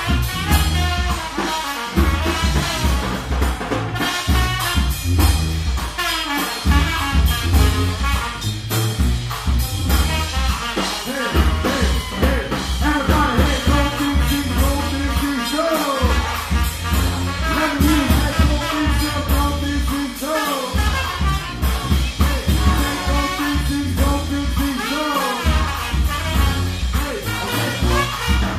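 New Orleans brass band playing live: a sousaphone bass line under trombones, trumpet and saxophone, with a drum kit keeping a steady beat.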